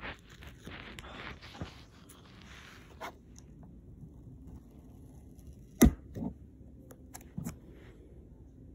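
Rustling and scraping handling noise with scattered light clicks, then one sharp knock a little past halfway and two softer knocks after it.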